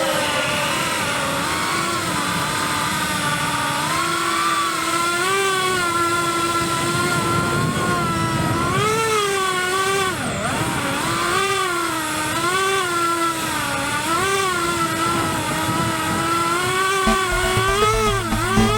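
Brushless motors of a Skystars Angela145 cinewhoop FPV drone whining in flight, at first holding a steady pitch, then rising and dipping in quick swoops with throttle changes about once a second in the second half. Music comes in near the end.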